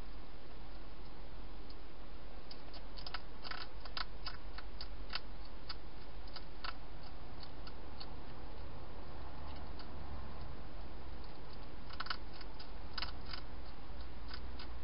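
Wild hedgehog chewing dry food, a run of quick, irregular clicks from a couple of seconds in to about halfway, and another short cluster near the end, over a steady hiss and low hum.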